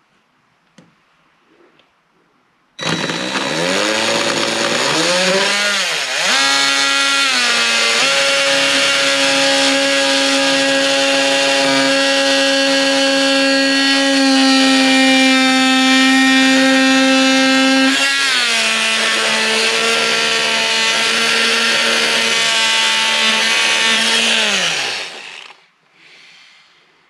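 Electric power saw cutting wood baseboard trim, making a freehand 45-degree angle cut. The motor starts a few seconds in with a whine that climbs as it spins up, then runs steadily. Its pitch drops lower about eighteen seconds in as it takes load, and it shuts off near the end.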